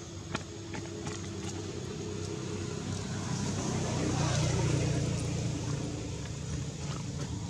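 A motor vehicle passing by, its engine and road noise building to a peak about halfway through and then fading. A few faint small clicks sound near the start.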